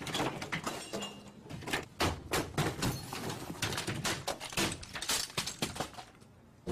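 Office equipment being knocked over and smashed: a rapid, irregular run of crashes, bangs and thuds that dies away near the end.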